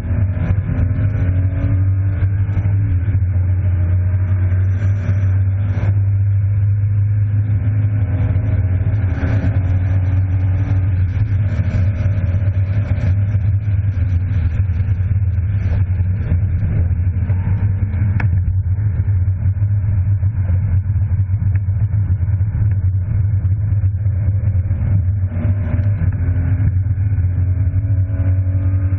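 BMW E36 325i's 2.5-litre straight-six heard from inside the cabin at speed on track, its pitch climbing under acceleration and falling back several times as it is driven through the corners and shifts. A steady low drone runs underneath, with a single sharp click about eighteen seconds in.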